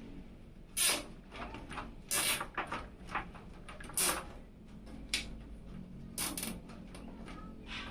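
A string of short clicks, knocks and scrapes of hard parts being handled and fitted during a PC build, in uneven clusters over a faint steady hum.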